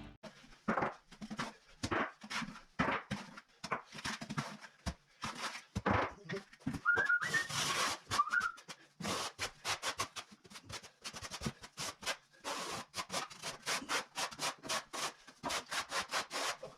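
Quick repeated scraping strokes, about three to five a second and getting faster in the second half, with a short squeak around the middle.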